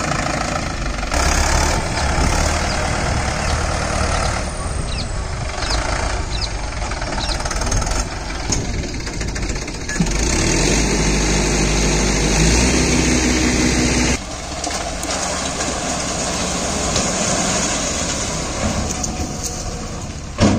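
Mahindra 595 Turbo tractor's diesel engine running under load, hauling a loaded tipper trailer of earth and stones. Its note changes abruptly several times.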